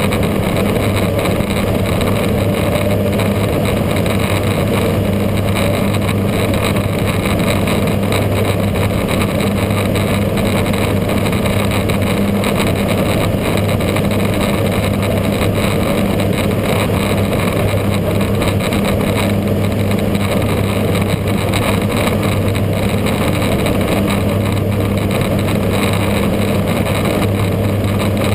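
Steady drone of a light propeller aircraft's piston engine and propeller heard from inside the cockpit in flight, with a strong low hum that holds one pitch throughout.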